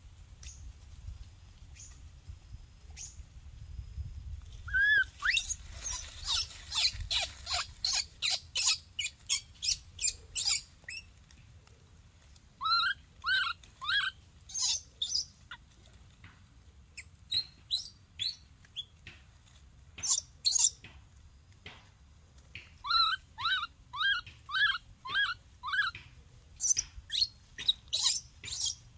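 A baby monkey giving short, high-pitched cries in repeated bouts of about two calls a second, starting about five seconds in, with pauses of a second or two between bouts.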